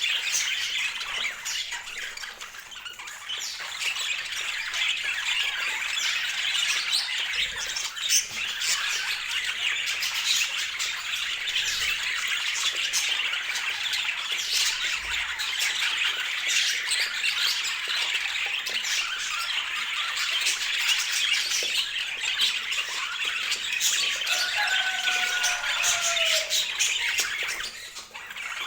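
Budgerigars chattering and squawking in a dense, unbroken warble. Two clear falling whistles stand out near the end.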